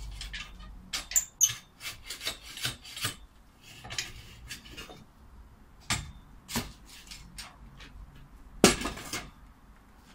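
A long-handled spade digging in a post hole: a run of sharp scrapes and chinks of metal on earth and stones, quick at first, then a few spaced strokes, with one loud, longer scrape about three-quarters of the way through.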